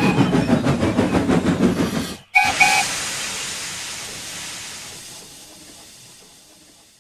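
Steam-train sound effects: a rhythmic steam-locomotive chuffing with a whistle held over its start, which cuts off about two seconds in. Two short whistle toots follow, then a long release of hissing steam that fades away.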